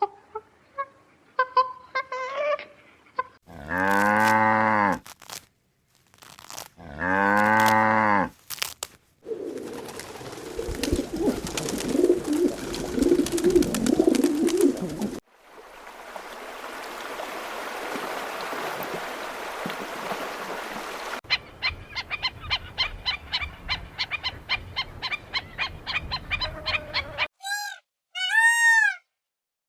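A run of farm-animal sounds: faint chirps, then two long, low cow moos, a stretch of noisy rustling, a steady hiss, a quick ticking patter, and short rising-and-falling calls near the end.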